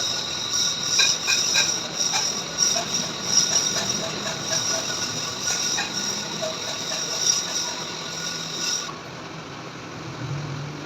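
Lathe running, with a steady high-pitched whine and scattered clicks; the whine cuts off about nine seconds in.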